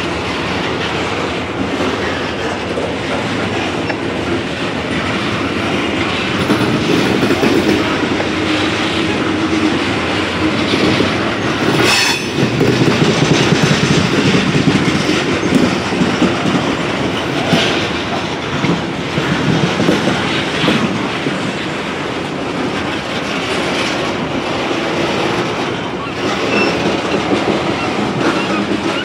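Loaded covered hopper cars of a freight grain train rolling past, wheels clicking over rail joints, with a sharp clank about twelve seconds in.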